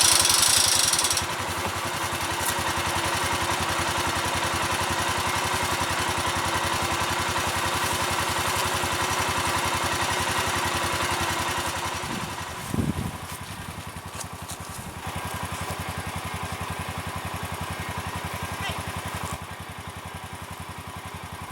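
A small engine running steadily at idle. A high hiss stops about a second in, and after a short squeal about 13 seconds in the engine sounds quieter.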